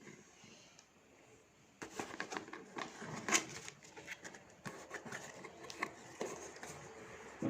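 Hand-handling noises of a parcel being unboxed: quiet at first, then from about two seconds in a run of small clicks, taps and rustles as the packaging is handled.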